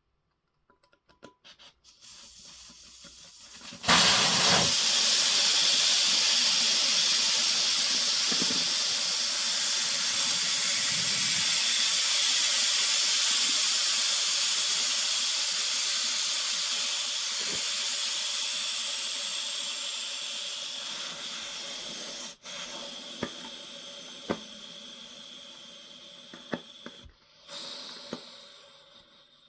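Air hissing out of a tyre through its open valve as the tyre deflates. It starts faintly, becomes loud suddenly about four seconds in, then slowly fades as the pressure drops, with a few small clicks near the end.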